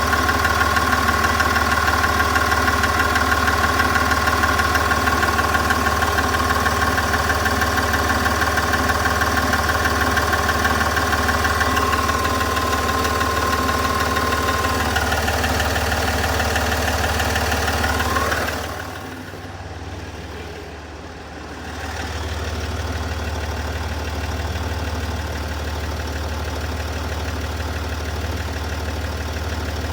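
SDV6 3.0-litre V6 turbo-diesel engine idling with a persistent ticking noise, taken as a fault symptom. A steady high whine over the engine fades out after about twelve seconds, and the whole sound dips for a few seconds about two-thirds of the way through.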